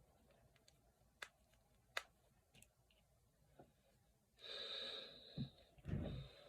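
Two sharp finger-knuckle cracks about a second apart, with a few fainter clicks after. Then a noisy breath lasting about a second, followed by a low thump near the end.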